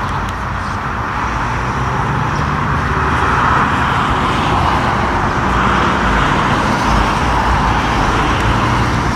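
A first-generation Ford Mustang convertible's engine running at low speed as the car drives slowly by, over a steady hiss of traffic on a road behind.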